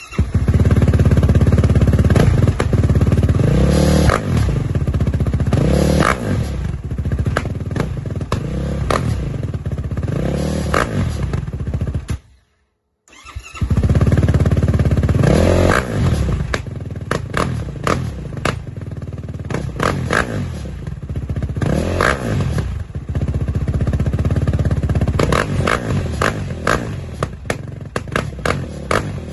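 Yamaha YFZ450R quad's single-cylinder four-stroke engine idling and being blipped, revving up and dropping back about every two to three seconds. The sound cuts out briefly a little before the middle, then the revving starts again.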